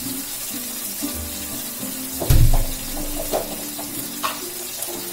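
Onion, tomato paste and sauce mixture sizzling as it fries in a wok over a gas flame, with a heavy thud a little over two seconds in and a few light clicks after it.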